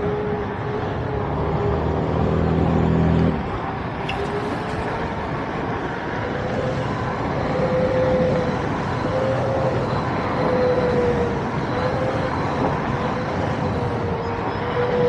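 Wind rushing over the microphone and road noise from a Veteran Patton electric unicycle cruising along a street. A thin whine, most likely from the wheel's hub motor, holds near one pitch and wavers slightly with speed. A low hum sounds for the first three seconds and cuts off suddenly.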